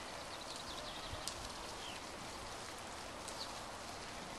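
Steady hiss of water spraying from a toy garden sprinkler onto grass, with a few faint high chirps.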